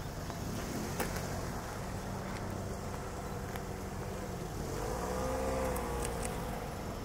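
Engine noise droning steadily at a distance, with a second engine's pitch rising and then falling about five seconds in. A sharp click comes about a second in.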